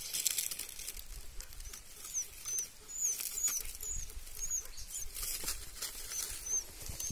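A small bird's high, thin peeping calls: short up-and-down chirps, about ten of them at roughly two a second, starting about two seconds in. Dry leaves rustle at the start and again about halfway through.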